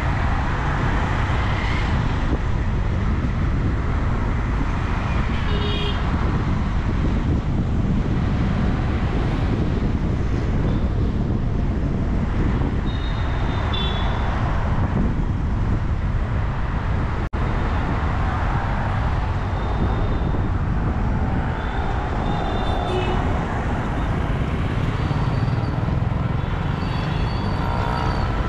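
Busy street traffic heard from a moving vehicle: a steady rumble of engines and tyres, with short vehicle-horn toots several times. The audio drops out for an instant a little past halfway.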